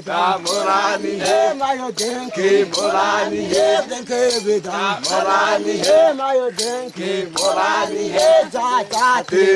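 Hadzabe dancers singing a rhythmic group dance song, with sharp percussive beats about twice a second.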